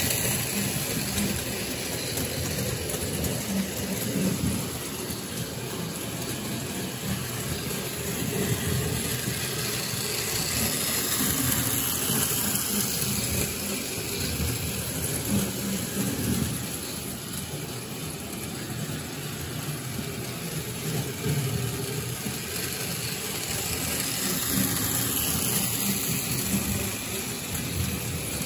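O-gauge electric model train running steadily around tubular three-rail tinplate track, its loudness rising and falling a little as the cars pass close by.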